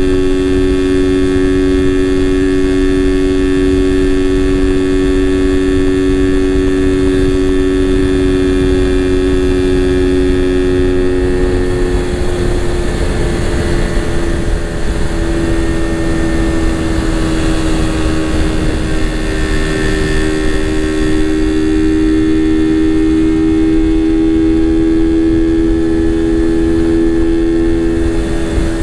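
Suzuki Raider 150 Fi's single-cylinder engine running at steady revs under way, over a constant low rumble of wind on the microphone. About twelve seconds in the engine note drops, then slowly climbs again through the rest of the ride.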